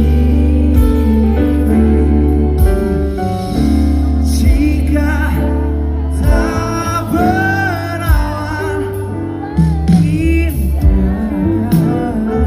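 Live band music played loudly over a heavy, sustained bass. A wavering melodic line, likely a voice singing without clear words, comes in about halfway through.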